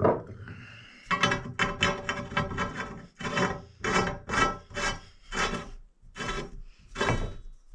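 Teflon thread-seal tape being pulled off its roll and wrapped around the threads of a pipe joint, a rough rasping stroke with each pull, about two or three a second. A single knock at the very start.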